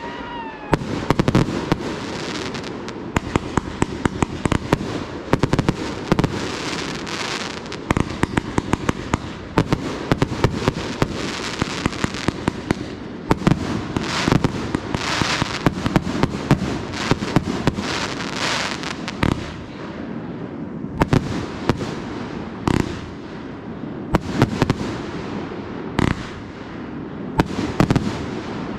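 Aerial fireworks going off in quick succession: dozens of sharp bangs over continuous crackling, with no pause.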